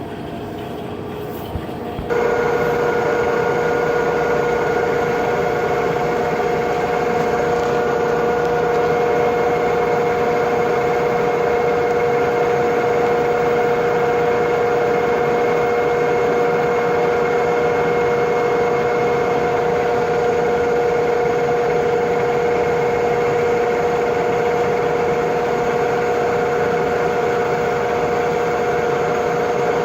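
Lathe running with a steady mechanical whine. About two seconds in it gets markedly louder, then holds an even pitch.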